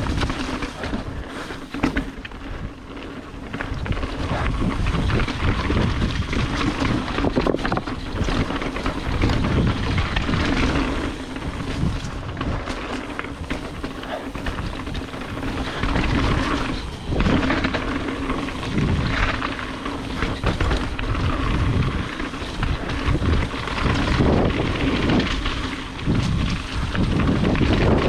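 Wind buffeting an action camera's microphone while a full-suspension mountain bike descends a trail, mixed with tyre rumble and the rattle of the bike over rough ground; the noise swells and eases as speed and terrain change.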